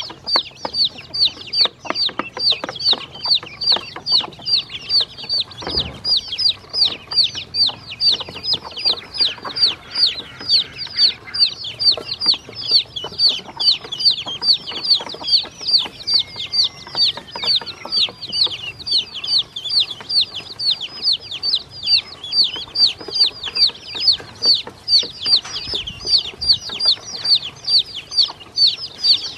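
Baby chicks and ducklings peeping without pause, a fast run of high, falling peeps about three a second.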